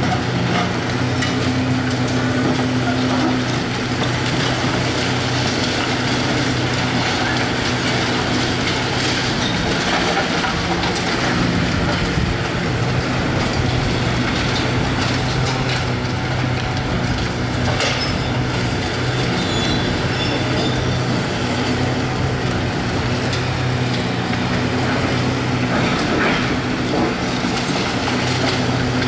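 Hitachi 670 LCH large hydraulic excavator's diesel engine running steadily under load, with scattered knocks and crunches of demolition work.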